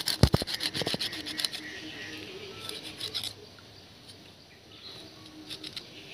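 A knife scraping the scales off a whole black pomfret in quick rasping strokes. The strokes come in three runs: through the first second and a half, again around three seconds in, and briefly near the end. Two dull thumps in the first second are the loudest sounds.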